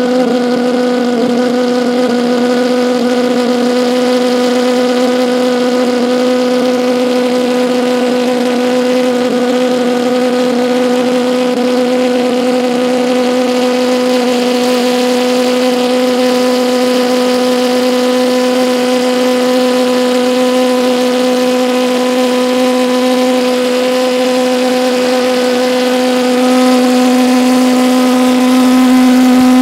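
Homemade Chinese-type valveless pulse jet engine running on propane: a loud, steady drone at one pitch with a stack of overtones, growing a little louder near the end.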